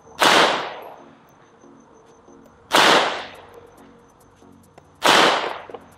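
Three shots from a Gen5 Glock 17 9mm pistol, fired slowly and evenly about two and a half seconds apart, each sharp crack trailing off in a short echo.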